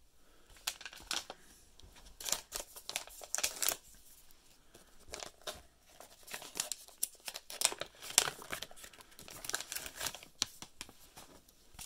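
Plastic packaging of a football-card mystery pack crinkling and tearing as it is opened, a string of short scratchy rustles and rips.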